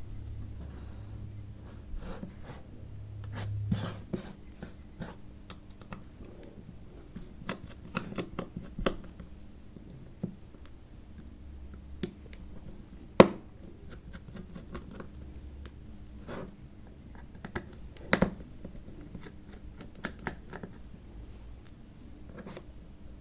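Screwdriver clicking and scraping on the small screws of a hard disk's circuit board, with scattered taps of tools and parts on the bench. The sharpest click comes about halfway through, and two more come close together a few seconds later. The upper screws are stuck and will not turn. A low hum rises over the first few seconds and then stops.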